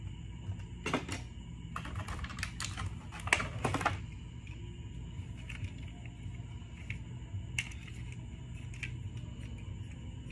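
Plastic toy train cars being handled: a quick run of light clicks and clatter in the first few seconds, then scattered single clicks, over a steady faint hum.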